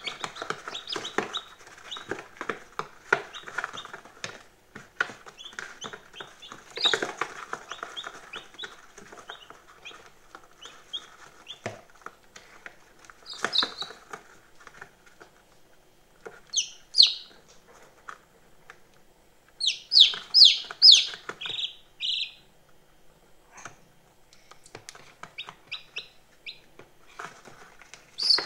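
Day-old chicks peeping in short, high cheeps, loudest in a quick cluster about two-thirds of the way through. Under the peeps runs a busy patter of small taps and scratches, heaviest in the first third, from beaks pecking at crumbled feed on the box floor.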